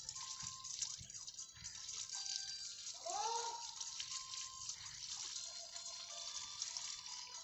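Transformer oil gushing from a filling nozzle into the OLTC compartment of a power transformer, splashing and frothing as the compartment fills and trapped air bubbles out. A brief pitched call rises and falls about three seconds in.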